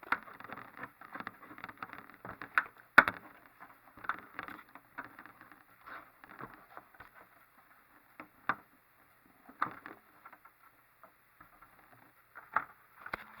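3D printer kit frame parts being handled and worked into place by hand: scraping and rustling with scattered sharp clicks and knocks, the loudest knock about three seconds in.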